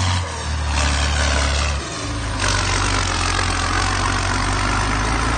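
Deutz F6L912 air-cooled, naturally aspirated six-cylinder diesel in a tractor, running steadily while pulling a tillage implement. Its note changes abruptly in pitch a few times.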